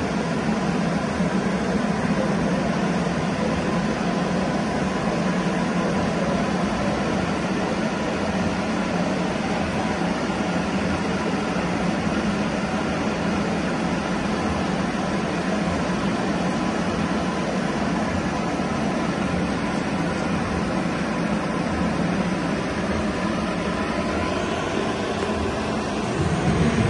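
A steady mechanical drone with an even hiss over it and a faint constant tone, unchanging throughout and shifting slightly near the end.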